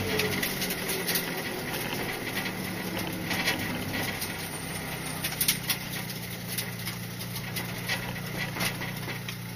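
Haima Family car's engine heard from inside the cabin, its revs dropping just after the start and then running steadily at low revs as the car rolls slowly, with a few scattered clicks and knocks.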